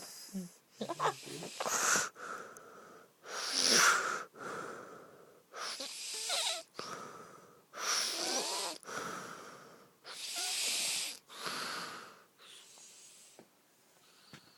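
Snoring, loud and rhythmic, about five wheezing breaths with squeaky whistling glides that sound like guinea pig squealing. The breaths fade near the end.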